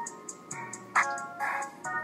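Hip-hop beat playing without vocals: held, bell-like synth notes over quick, even hi-hat ticks and a sharp clap about a second in.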